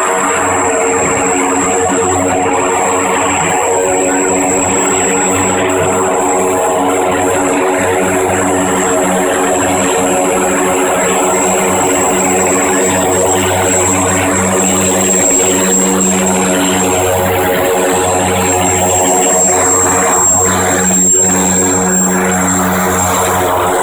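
Twin Turbomeca Astazou turboprop engines of IA-58 Pucará ground-attack aircraft taxiing close by: a loud, steady propeller drone with a thin high turbine whine above it. The drone swells in the second half as the lead aircraft passes close.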